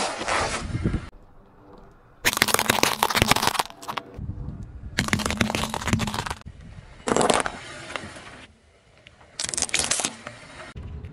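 A car tyre rolling over and crushing toys and soft objects on asphalt, heard as about five separate bursts of crackling and crunching, each starting and stopping abruptly.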